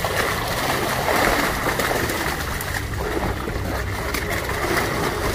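A mass of crowded fish, carp among them, thrashing in shallow water inside a drawn seine net: continuous churning splashing with many small sharp slaps.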